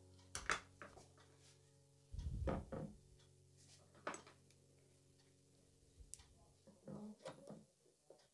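Scattered light clicks and knocks of a precision screwdriver and a hard drive being handled on a tabletop, with short clusters about two and seven seconds in.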